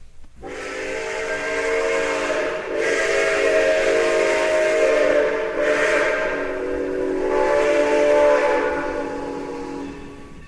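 Sound system of a Broadway Limited model New York Central J-1e Hudson steam locomotive playing its steam whistle: a chord of steady tones over a hiss of steam, sounded in a few long blasts with brief dips between them, fading out near the end.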